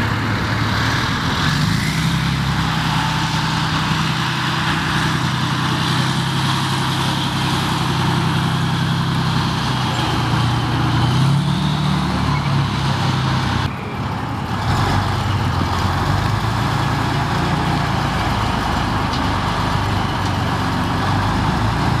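Engine of a tracked armored vehicle-launched scissor bridge on a tank chassis, running as it maneuvers: a steady low drone that rises briefly in pitch about eleven seconds in, with a short drop in loudness a couple of seconds later.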